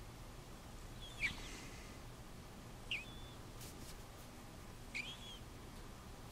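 Manx cat snoring: a short, high squeaky whistle on each breath, three times about two seconds apart.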